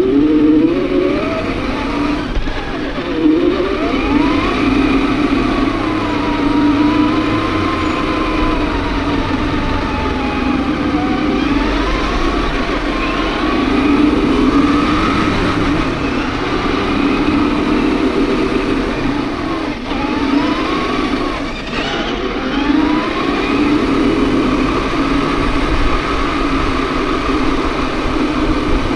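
RC4WD Desert Runner 1/10 scale RC truck's motor and drivetrain running hard, the pitch rising and falling again and again with the throttle.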